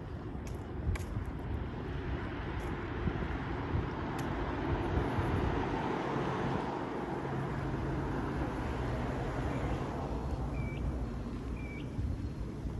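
A motor vehicle passing on the adjacent road: a broad rumble that builds to a peak about halfway through and then fades. A few sharp clicks early on, and two short high chirps near the end.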